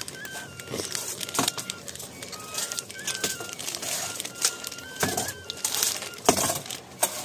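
Hands kneading wheat-flour dough in a wide metal basin: irregular soft slaps, squelches and knocks as the dough is pressed and folded against the metal.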